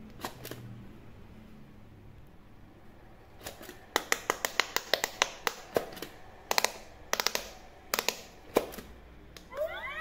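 Bunny-shaped electronic quick-push pop-it game being pressed by hand: a run of sharp plastic clicks, several a second. Near the end the toy switches on with a sweeping electronic chirp.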